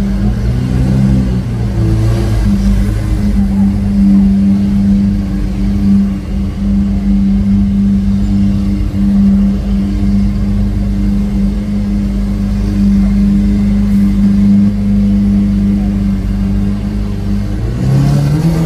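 Lamborghini Aventador SV Roadster's V12 engine through its Capristo exhaust, running at steady revs while cruising with a constant droning note. The revs shift briefly about a second in and swell again near the end.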